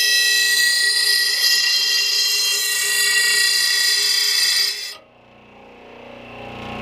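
Oregon bench blade grinder's abrasive wheel grinding a steel lawn mower blade to sharpen it: a loud, steady, high-pitched screech with ringing tones, cutting off abruptly about five seconds in as the blade comes off the wheel.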